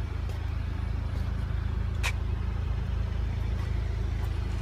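Steady low hum of an idling engine, with a few faint clicks, the sharpest about two seconds in.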